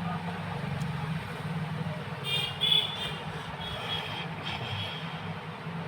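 Steady low rumble like a running vehicle engine, with brief high-pitched tones about two and a half seconds in and again near four seconds.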